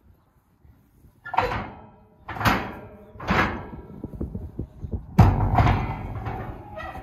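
Steel trailer loading ramps being handled: three sharp metal clanks about a second apart, then a louder clang with ringing rattle about five seconds in as a ramp is lifted.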